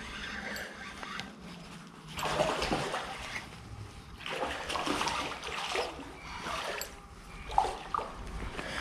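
Hooked white-spotted char (amemasu) splashing and thrashing at the water's surface in several irregular bursts while it is being played on the line.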